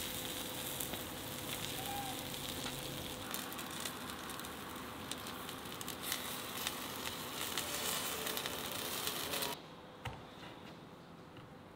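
Whole chickens roasting on a spit over hot charcoal, sizzling with a dense run of fine crackles. The sizzle cuts off suddenly near the end.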